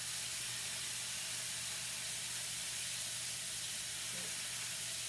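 Ribeye steaks sizzling steadily as they fry in a hot skillet on a gas stove.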